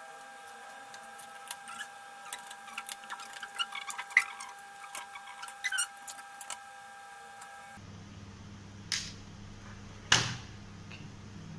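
Small clicks and taps of handling small parts and hand tools on a workbench, with two louder knocks near the end. A low hum comes in about eight seconds in.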